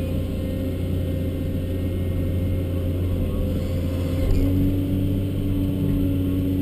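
Cat 324D long-reach excavator's diesel engine running steadily under load, heard from inside the cab, with a steady hydraulic whine that shifts to a lower, stronger tone about four seconds in as the upper structure swings round.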